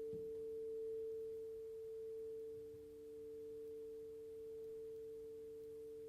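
Two crystal singing bowls ringing together in long steady tones, a D and an A a perfect fifth apart, slowly fading.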